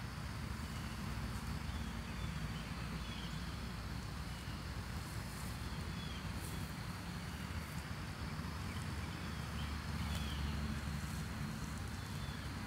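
Outdoor park ambience: a small bird chirping briefly about once a second over a steady low rumble and a faint, steady high-pitched hum.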